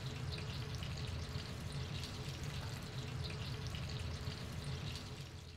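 Vegetable oil heated to about 180 °C for deep-frying, sizzling and crackling in the frying pan, over a steady low hum; the sound dips slightly near the end.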